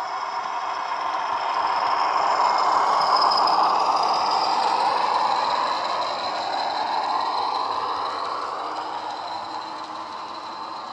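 Model train running past on the layout track: wheel-on-rail rumble and motor whine swell to a peak about three seconds in, then fade as it moves away.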